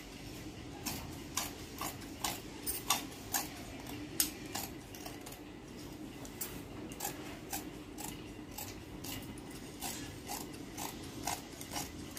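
Large tailoring scissors snipping through cotton cloth: a run of sharp snips, about two a second, starting about a second in.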